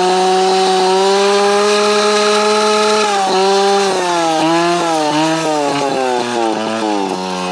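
Dirt bike engine running under way at steady high revs, then the revs dipping and climbing in quick repeated swoops, about twice a second, from about three seconds in as the throttle is worked.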